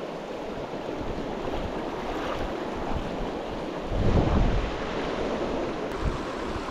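River water rushing steadily, with wind buffeting the microphone in a gust about four seconds in.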